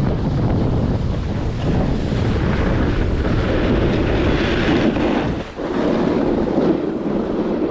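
Wind buffeting the camera microphone: a steady rumbling roar with a hissier stretch in the middle and a brief drop about five and a half seconds in.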